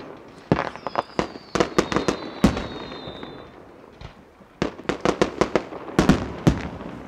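Aerial fireworks bursting: two volleys of rapid sharp bangs with a short lull between them. A thin high whistle slides slightly down through the first volley.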